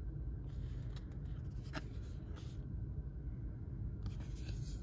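Paper trading cards being handled and slid against one another, giving a few faint ticks and scrapes over a steady low background hum.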